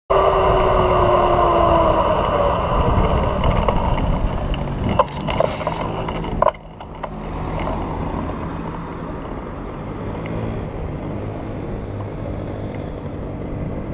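City street traffic and wind rush on the microphone while riding, with a falling whine in the first couple of seconds and a few sharp clicks around five to six seconds in. The noise drops suddenly about six and a half seconds in, leaving steadier, quieter traffic with idling engines while stopped at the light.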